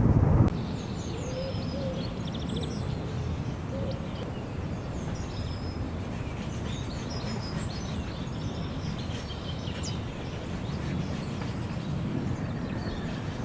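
Outdoor ambience: a steady low rumble, with small birds chirping and calling faintly over it. A louder rumble cuts off abruptly about half a second in.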